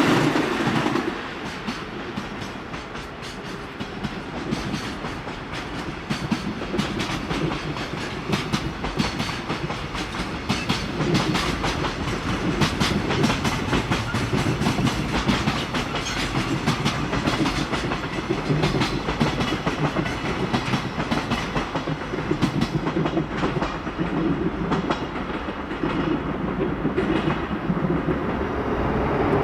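Freight train passing, its wagons' wheels clattering over rail joints in a quick, steady clickety-clack under a running rumble.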